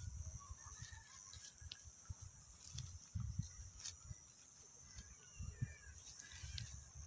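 Faint soft thuds and rustling as caught tilapia and common carp are shifted by hand on grass strewn with dry leaves, with a few faint bird chirps.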